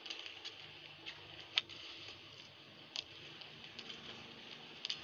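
Badminton rally: rackets striking the shuttlecock in three sharp cracks about a second and a half apart, the first the loudest, with light footfalls on the court mat between them.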